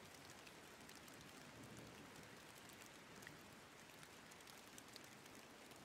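Faint steady rain: a soft, even hiss with scattered tiny drop ticks.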